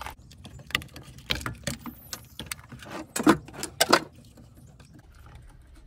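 Plastic clicks and rattles as the black vent hoses are unclipped from the cell modules of a Prius hybrid battery pack, with two sharper clicks between three and four seconds in.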